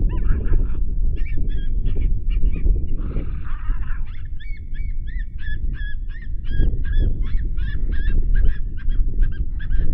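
A flock of geese honking, many short calls overlapping in quick succession, thickest in the second half, over a steady low rumble.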